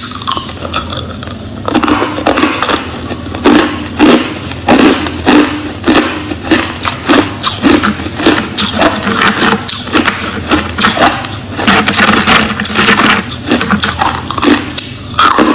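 Crushed clear ice being chewed close to the microphone: a dense, irregular run of loud crunches, several a second.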